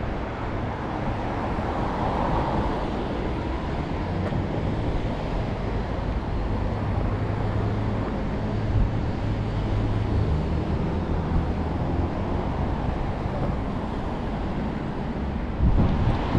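Steady road traffic noise, with a low vehicle rumble strongest around the middle.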